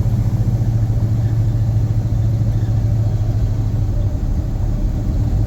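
Cab of a 1979 Dodge Power Wagon pickup while driving: the engine and drivetrain make a steady low drone.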